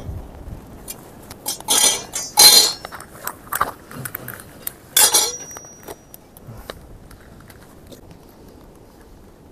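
Tent pole sections clinking and rattling as they are handled and slotted together. There are three louder clatters, about two, two and a half and five seconds in, and the last leaves a brief ringing tone.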